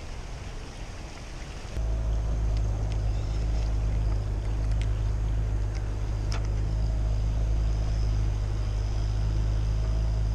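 A boat engine running with a steady low hum that comes in abruptly about two seconds in, with a few faint clicks over it.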